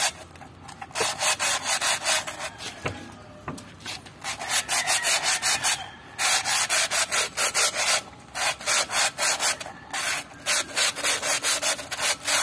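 Wet sandpaper wrapped on a rod rubbing quickly back and forth inside a truck's drum-brake wheel cylinder bore, sanding off the rust that had stuck the piston. The scraping goes in runs of a second or two at about five strokes a second, with short pauses between runs.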